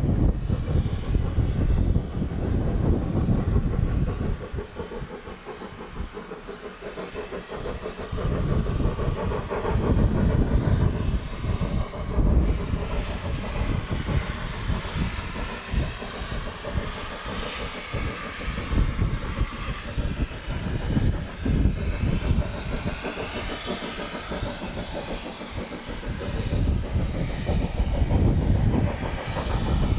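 Steam locomotive and its train running on the track, a heavy low rumble that eases for a few seconds about five seconds in and builds again near the end.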